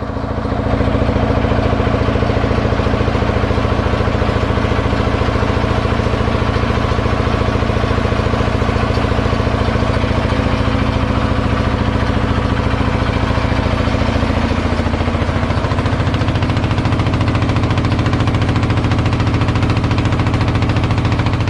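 Wooden boat's inboard engine running steadily under way, loud and close, with a fast even beat. Its note changes slightly about fifteen seconds in.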